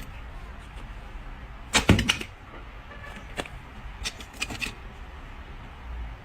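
A few sharp knocks and clicks on household objects. The loudest is a quick cluster about two seconds in, followed by a single click and then another short run of clicks a little later.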